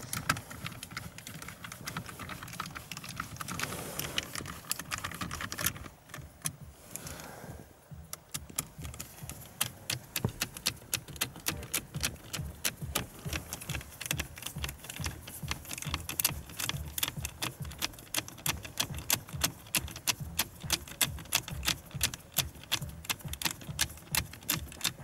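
Ratcheting driver with a Torx T15 bit clicking as a long screw is backed out by hand. The clicks are irregular at first, then after a short pause settle into a steady run of several clicks a second.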